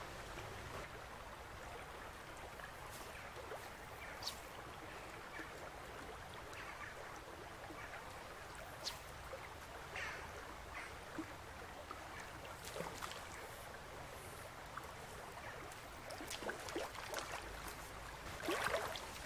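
Shallow stony river running steadily around the wading angler, with scattered small clicks and a short louder cluster of water sounds near the end.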